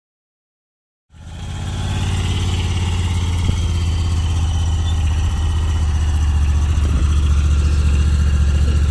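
Honda Talon side-by-side's parallel-twin engine running at low, steady revs as it rolls slowly down a trailer ramp, starting about a second in.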